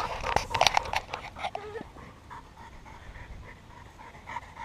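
Dog panting in a quick, even rhythm, with a few sharp knocks and rustles in the first second or so.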